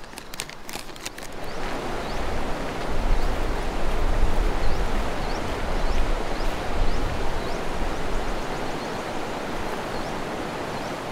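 River water rushing over shallow rapids, a steady noisy wash that swells in about a second and a half in. A few sharp clicks and rustles come at the start.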